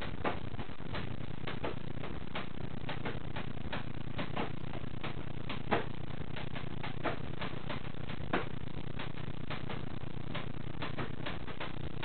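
African grey parrot's beak clicking and tapping at close range: irregular light clicks, several a second, with a few louder knocks over a steady background hiss.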